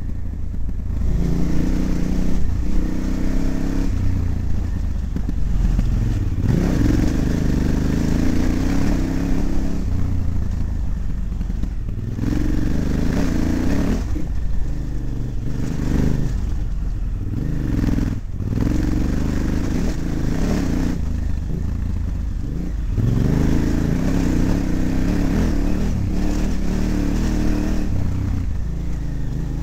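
KTM 950's V-twin engine on the move, the throttle opening and easing off every few seconds, so the engine note rises and falls with short drops when it is shut off.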